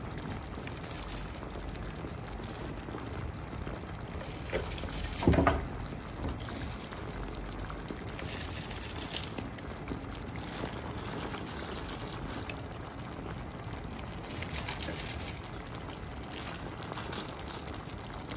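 Tomato-and-sardine sauce simmering and sizzling in a pan while handfuls of shredded cabbage are dropped onto it, with short rustles of the leaves and a single thump about five seconds in.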